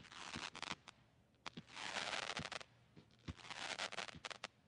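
Rocket Fireworks 'Wicked' 48-shot barrage cake firing shooting stars with tails, about three shots in a row. Each shot is a low thump followed by about a second of hissing and crackling as the star climbs.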